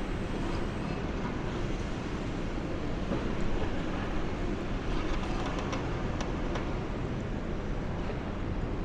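Steady engine and hydraulic rumble of a long-reach demolition excavator gripping a section of concrete high-rise, with a few faint knocks of debris about halfway through.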